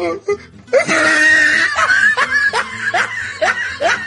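Person laughing over background music: a burst that starts about a second in and goes on as a run of short rising 'ha' sounds, about two to three a second.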